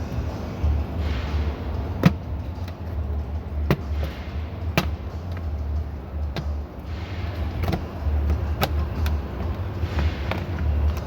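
Car interior trim panel being pried loose with a panel puller: a run of irregular sharp clicks and knocks with short scrapes, over a low steady hum.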